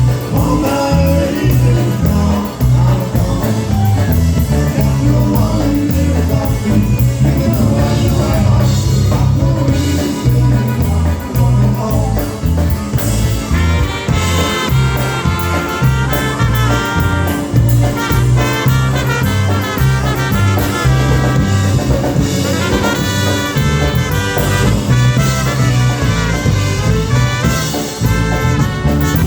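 Live polka band playing an instrumental stretch of a song over a steady alternating bass beat, with brass carrying the tune from about halfway through.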